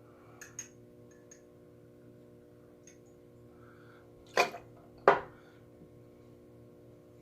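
Glassware set down on a hard counter twice, two sharp knocks a little under a second apart, over a steady low hum. A few faint light clicks come near the start.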